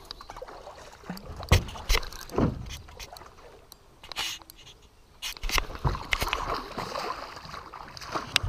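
Scattered sharp knocks and thumps of handling on an aluminum fishing boat and a hand-held camera, with light water splashing as a hooked salmon is brought to the landing net.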